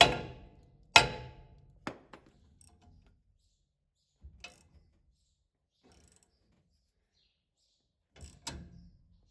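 Hammer striking metal with ringing blows, tapping to shock a stuck combine countershaft bearing loose. Two hard strikes come about a second apart, then a lighter knock, then a few faint clanks of tool handling near the end.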